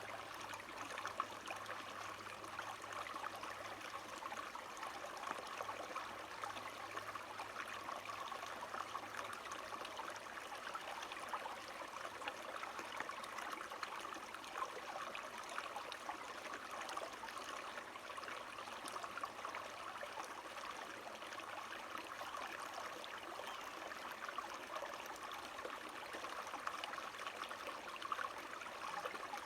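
Water flowing steadily in a small stream, a continuous even rush of running water.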